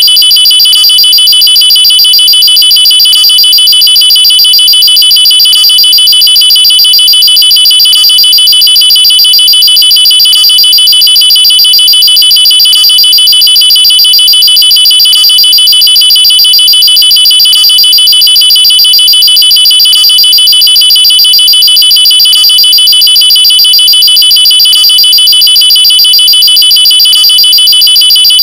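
Loud electronic alarm tone, a steady high pitch with a fast pulse, repeating unchanged in a cycle of about two and a half seconds. It holds one pitch with no rising or falling wail.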